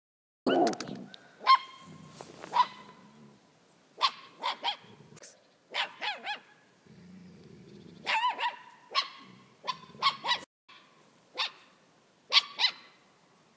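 Two dogs, a German Shepherd and a smaller fluffy dog, play-fighting: a string of short high barks and yelps in irregular bursts, with low growling between them.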